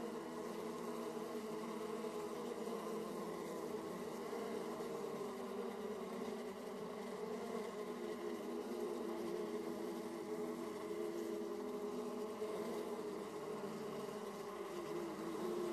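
Honey bees buzzing in a steady, dense hum at the hive entrance, many bees flying in and out together.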